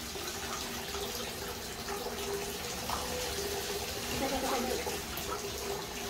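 Bath tap running steadily into a tub full of bubble-bath foam, a continuous rush of water.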